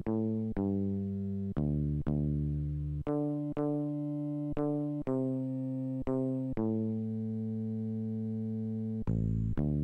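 Commodore Amiga 500 playing a passacaglia bass line through Deluxe Music Construction Set's sampled electric bass voice: single low notes in slow triple time, mostly half a second to a second apart, with one tied note held for about two seconds near the end.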